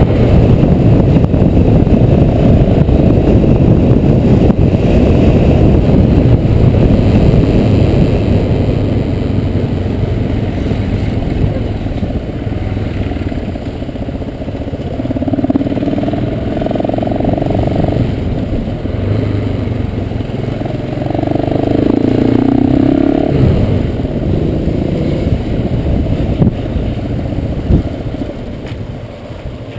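KTM 690 SMC R's single-cylinder engine running under way, its note rising and falling with the throttle and falling away near the end as the bike slows.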